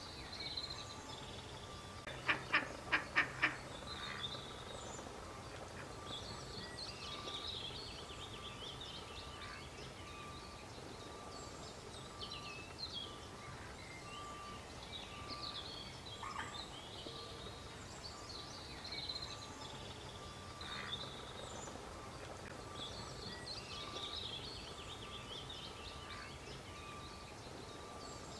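Ducklings peeping over and over in high, short chirps. About two seconds in comes a burst of five loud, rapid calls from a larger bird.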